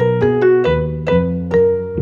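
Background music: a light piano tune over a bass line, with notes struck about two or three a second.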